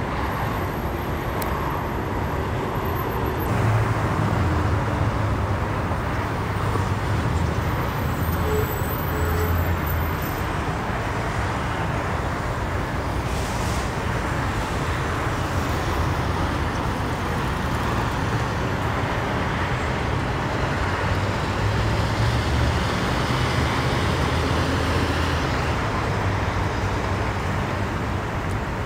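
Steady freeway traffic noise: the continuous roar of tyres and engines from cars and trucks passing below, with a deeper engine rumble that swells twice as heavier vehicles go by.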